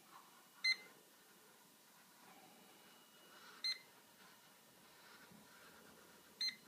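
Testo 316-4 refrigerant leak detector beeping: three short, sharp beeps about three seconds apart.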